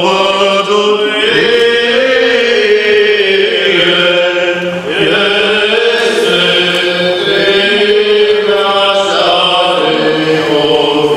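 Orthodox church chant: voices sing a slow, held melody over a steady low drone note, as part of the wedding service.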